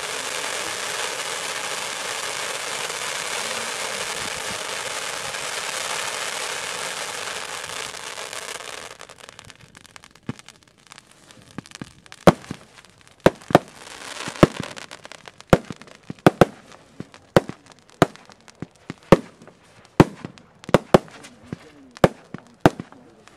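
Fireworks: ground fountains spraying sparks with a steady loud hiss that fades out about nine seconds in. Then comes a run of sharp separate bangs, about one or two a second, as aerial shells and comets fire and burst.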